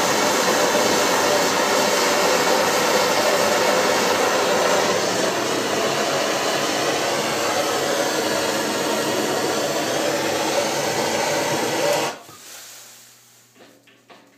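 Handheld gas torch burning with a loud, steady hiss as it heats a copper fitting and boiler wall for soldering. It is shut off abruptly about twelve seconds in, leaving a few faint taps.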